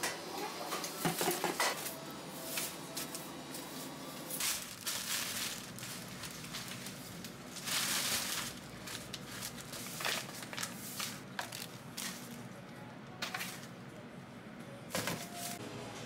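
Plastic trash bag and floral wrapping rustling and crinkling in irregular bursts as cut flower stems and leaves are gathered and stuffed into the bag, the loudest crumpling about halfway through, over faint background music.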